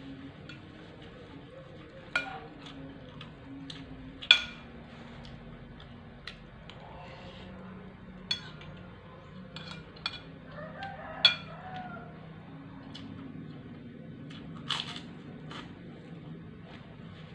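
Spoon and fork clinking on a plate while eating: about six sharp clinks spread through the stretch, the loudest a little over 4 s in, over a low steady hum.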